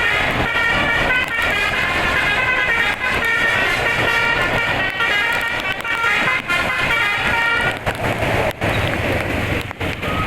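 Bus telolet horn playing a melody from a DAV horn module: loud multi-tone horn notes that change pitch every half second or so, fading into a noisy wash about eight seconds in.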